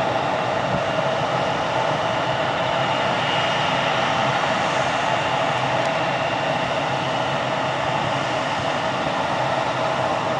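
Embraer E175 airliner's twin turbofan engines running steadily at low taxi power as the jet rolls slowly along the runway: a constant jet rush with a thin high whine above it.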